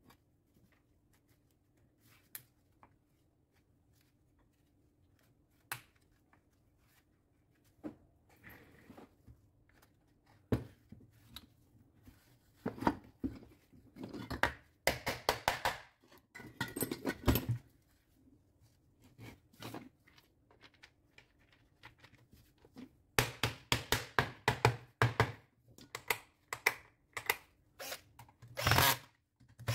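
Plastic housing parts of a Makita GA9020 angle grinder being handled and pressed together by hand while the switch and rear handle are fitted: scattered clicks, knocks and rubbing, thickening into two busy stretches, one in the middle and one near the end. A faint steady hum runs underneath.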